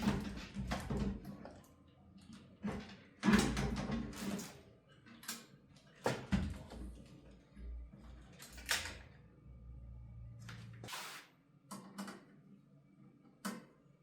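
Scattered clicks and knocks of hardware being handled, with a low hum underneath that cuts off about eleven seconds in.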